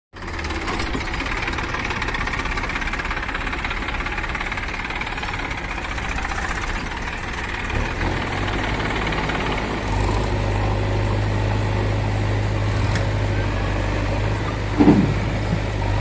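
Diesel engines of a Massey Ferguson 241 DI tractor and a JCB backhoe loader running steadily, the low engine hum getting louder about ten seconds in. About a second before the end a short, loud pitched sound cuts through.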